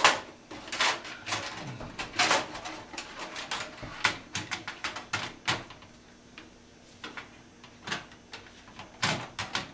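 Irregular clicks, taps and knocks of hardware being handled and fitted into a metal computer tower case, with the loudest knock right at the start and a quieter spell in the middle.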